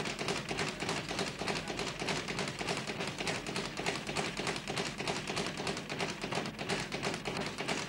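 Rapid, unbroken tapping with light thuds: the busy sound of boxing training in a gym.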